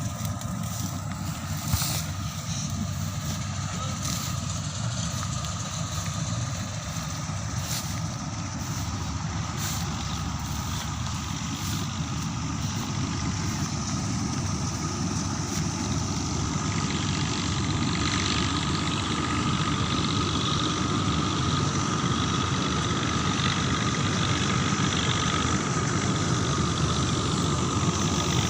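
Combine harvester's diesel engine running steadily in a rice field, growing louder through the second half.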